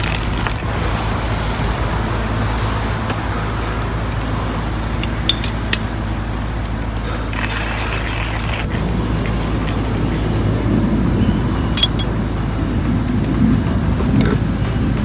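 Coffee grinder grinding beans, a steady grinding noise that grows heavier in the second half, with a few sharp clinks around the middle and near the end.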